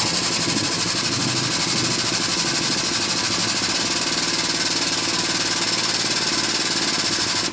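A 10,000 psi air-over-hydraulic treadle pump running on compressed air, its air motor cycling rapidly with a loud hiss of exhaust air, then cutting off suddenly at the end. The pump has just been cleaned and reassembled after it had been bypassing and blowing air, and it sounds a lot better.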